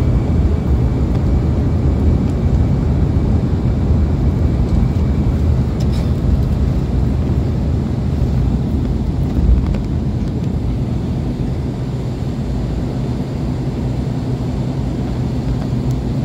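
Inside the cabin of an Embraer EMB145 regional jet at takeoff, its two rear-mounted Rolls-Royce AE 3007 turbofans at high power make a steady low noise as the jet leaves the runway and climbs. A brief click comes about six seconds in.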